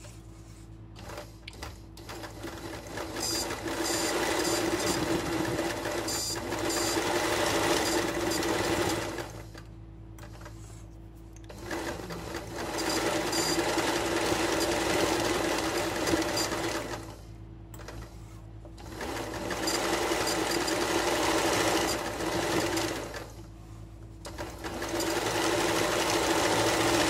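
Electric sewing machine stitching free-hand embroidery through fabric held in a hoop, running at speed in four spells of several seconds, with three short stops as the hoop is repositioned.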